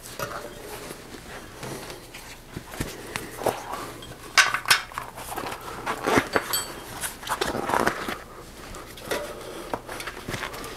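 A rubber bicycle tire being worked by hand onto a wheel rim: irregular rubbing and scraping of the tire bead against the rim, with scattered clicks and knocks as the wheel is turned.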